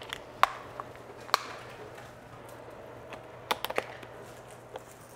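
A few sharp light clicks and taps of kitchen containers and utensils being handled, with a quick cluster of them midway, over a faint steady low hum.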